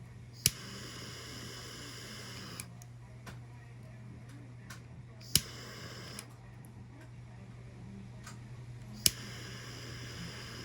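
Three sharp clicks of a small gas torch's igniter, each followed by the hiss of its flame. The first flame hisses for about two seconds and the second briefly, and the last, near the end, stays lit and hissing. A steady low hum runs underneath.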